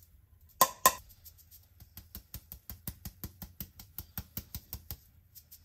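Two sharp metal clinks a little over half a second in as a fine-mesh metal sieve is handled. Then comes a steady run of light taps, about five a second, as the sieve is tapped to sift flour onto cake batter.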